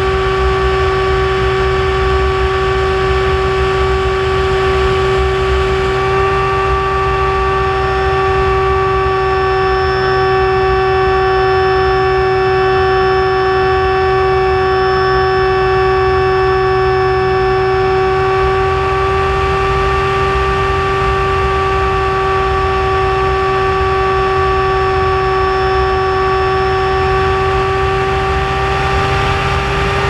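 Icon A5's propeller and motor running at a steady cruise, a loud, even pitched drone with overtones that barely changes in pitch, with wind rushing over the camera underneath.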